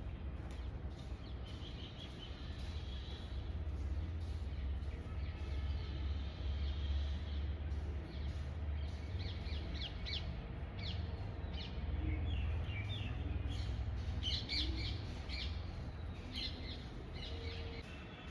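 Birds chirping in short, repeated calls, more often in the second half, over a steady low background rumble.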